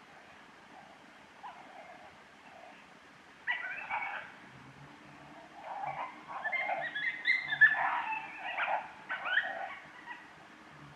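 Coyote vocalizations: high, wavering whines and yelps, one short burst about three and a half seconds in, then a longer run of calls from about six to ten seconds.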